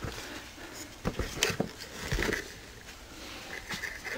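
Hands handling a brushless RC motor and its wiring while plugging in the sensor cable: scattered small clicks and knocks of plastic connectors and parts, with no motor running.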